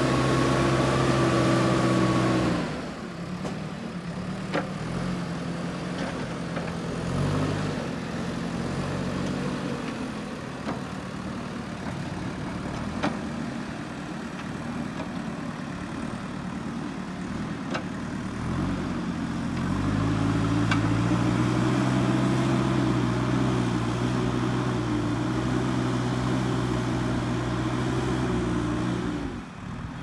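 JCB 3DX backhoe loader's diesel engine running as the machine drives and levels soil. The engine works hard at first, eases off about three seconds in, and picks up again and holds steady from about twenty seconds in. There are a few sharp clicks.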